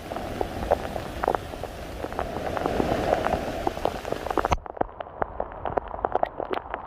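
Heavy rain falling, with many close raindrop taps over a steady hiss. About halfway through, the high part of the hiss drops out suddenly while the taps go on.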